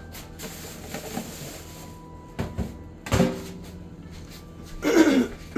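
Kitchen clatter: two short knocks about two and a half and three seconds in, then a louder creaking scrape that falls in pitch near the end.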